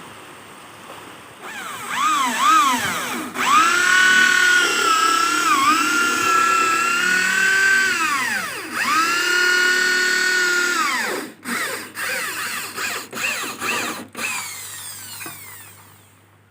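Handheld electric drill running with a whine that rises as it spins up, holds steady, drops and revs up again, then a string of short trigger bursts near the end. It is boring holes for a small boat's engine mount.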